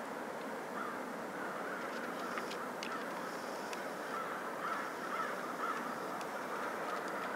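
A large flock of American crows cawing in scattered, overlapping calls over a steady background rush.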